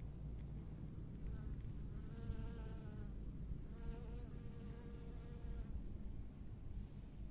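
Honeybee buzzing in flight, a wavering hum that comes twice, each time for about one and a half to two seconds, over a steady low rumble.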